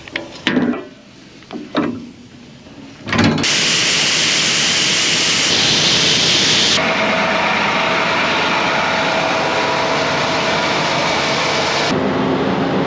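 A few light knocks, then a loud, steady rushing machine noise starts abruptly about three seconds in and keeps going.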